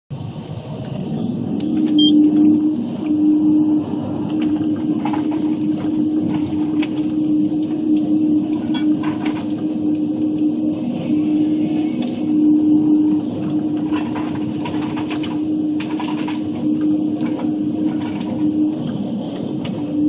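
Log processor's engine and hydraulics running steadily with one steady droning tone, while its Waratah 622B processing head grips, feeds and delimbs logs, giving scattered sharp knocks and cracks of wood and branches. The sound swells over the first two seconds.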